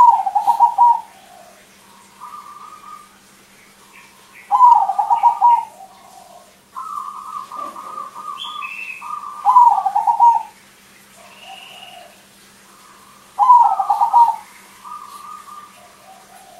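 Caged crossbred zebra dove (perkutut) singing its rapid rolling coo in four loud phrases about a second long, one every four to five seconds, with softer cooing phrases between them.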